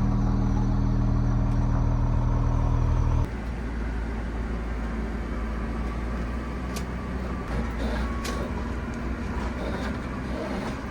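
Diesel pusher motorhome engine running with a steady deep hum. About three seconds in, the sound cuts abruptly to a steadier low rumble of engine and road noise as the motorhome drives.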